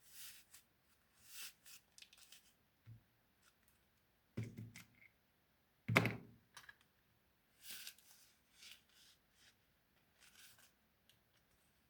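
Craft-work handling noises: scattered light rustles and clicks, with two soft thumps about four and a half and six seconds in.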